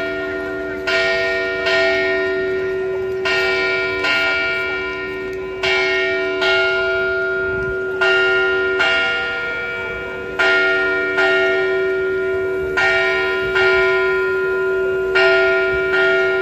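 Church bells ringing from a bell tower: strokes come in pairs about every two and a half seconds, and each one rings on long under the next.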